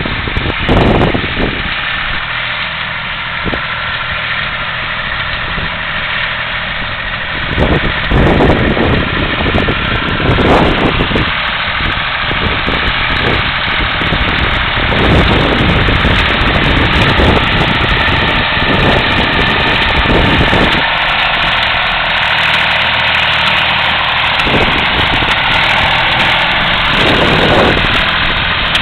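An engine running steadily, with irregular knocks and thumps over it, coming more often after about eight seconds.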